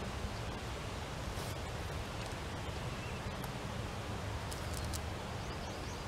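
Outdoor ambience with a steady low wind rumble on the microphone, and a few faint light clicks and rustles from hands working at the base of a wooden fence post, about a second and a half in and again near the end.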